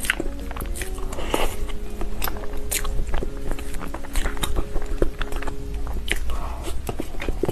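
A person eating soft cream and mousse cake from a spoon: chewing with a quick, irregular run of sharp wet mouth clicks and smacks.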